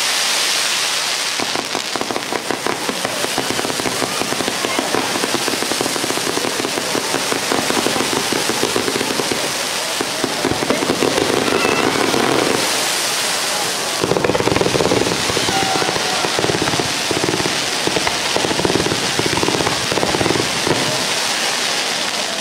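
Hand-held bamboo-tube fireworks (tezutsu hanabi) spraying fountains of sparks, making a continuous rushing hiss dense with crackling that briefly drops and then swells fuller about two-thirds of the way through.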